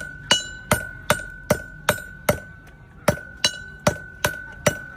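Steady hammer blows on an anvil as a chisel is reforged, about two and a half strikes a second, each with a bright metallic ring that hangs on between blows.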